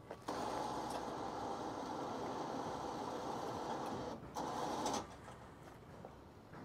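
A small electric motor whirring steadily. It stops briefly about four seconds in, then runs again, a little louder, for under a second before cutting off suddenly.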